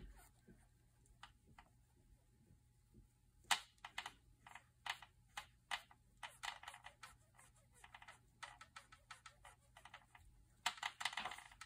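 Faint, irregular small clicks and taps of plastic as gloved hands work a saline flush syringe on a central line during a slow push, sparse at first and coming thicker from about a third of the way in.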